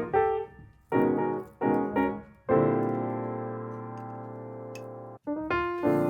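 Background piano music: a few short phrases, then a long held chord that fades and cuts off abruptly about five seconds in, before the notes start again.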